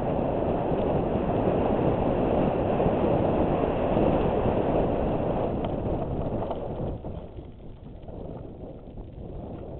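Wind rushing over a helmet-mounted action camera and the rumble of mountain bike tyres rolling fast down a dirt fire road. The noise falls off noticeably about seven seconds in.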